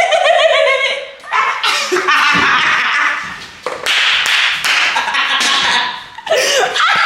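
Several people laughing hard: high, wavering laughs, then long breathy stretches of laughter and shrieking with brief pauses between.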